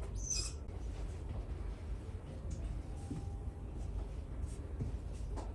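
Steady low room rumble, with a brief high hiss or rustle about a quarter of a second in and a few faint ticks.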